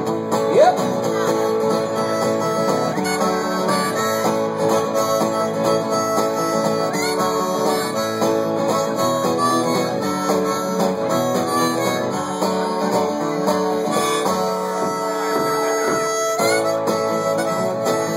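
Instrumental break of a folk blues song: harmonica playing the lead over strummed acoustic guitar, with a bent note rising about half a second in.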